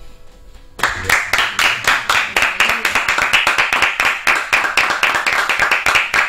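The last chord of an acoustic guitar fading out, then a small group of people clapping from about a second in, many quick claps a second.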